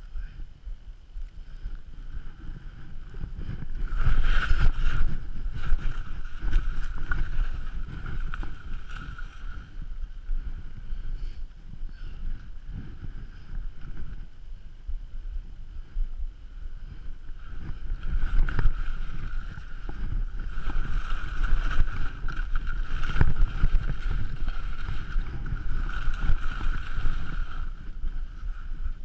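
Wind buffeting the helmet camera's microphone while skiing, with skis scraping and hissing over firm, wind-packed snow. It gets louder in two long stretches, from about four seconds in and again from about eighteen seconds.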